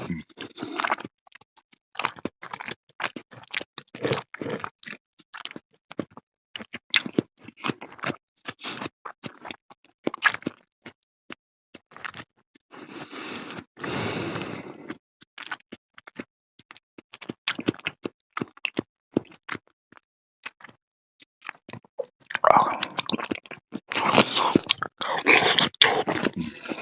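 Close-miked eating of a cheese-topped fruit salad: wet chewing and crunching with many sharp clicks and scraping sounds. A short rushing noise comes about halfway, and the eating grows busier near the end.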